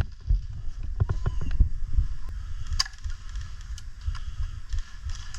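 Uneven low rumble of handling and wind on a body-worn action camera's microphone as the player moves, with a few faint clicks and one sharper click.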